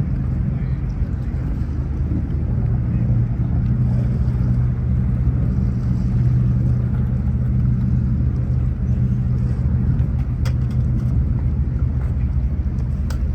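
A large engine running at a steady speed with a constant low drone, and two faint ticks near the end.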